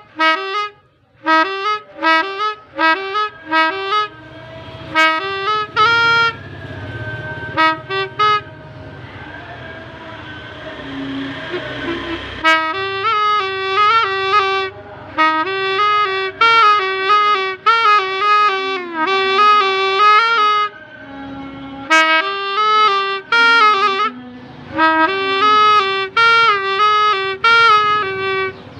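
A homemade telolet 'basuri' bus horn built from a toy, tooting a quick melody of short horn notes that step up and down in pitch, in several runs. Midway the notes give way for a few seconds to a hissing noise before the melody resumes.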